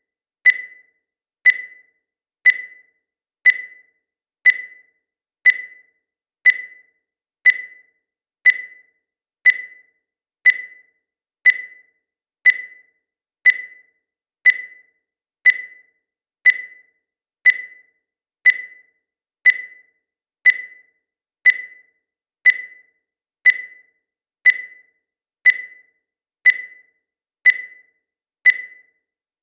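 Digital countdown timer beeping once every second: short, high-pitched electronic beeps, each sharp at the start and fading quickly, in a perfectly even rhythm.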